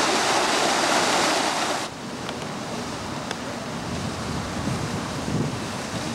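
Steady outdoor rushing noise on a camcorder microphone: a loud hiss that cuts off sharply about two seconds in, followed by a softer, steady rush of splashing fountain water with some wind on the microphone.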